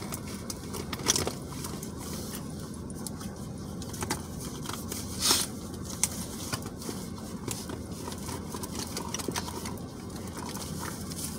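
Someone rummaging around a car interior looking for coins: scattered rustles, clicks and scrapes, with two louder scraping bursts about a second in and about five seconds in, over a steady low rumble.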